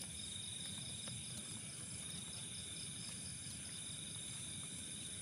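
A night chorus of crickets and other insects: a steady high-pitched trill with evenly repeating chirps beneath it.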